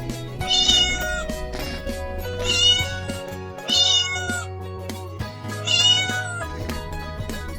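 Domestic cat meowing four times, each meow under a second long, over background music.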